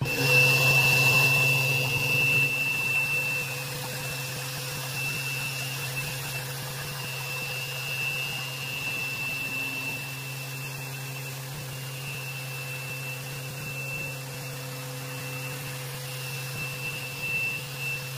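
Random orbital sander with a dust-extraction hose sanding an epoxy resin tabletop. It starts right at the outset, is loudest for the first two seconds, then runs steadily with a low hum and a high whine.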